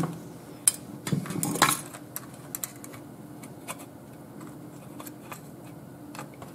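Rustling and small clicks of copper desoldering braid being handled and pressed onto an SMD chip's pins with a soldering iron. The handling noise is loudest in the first two seconds, then thins to occasional faint ticks over a faint steady hum.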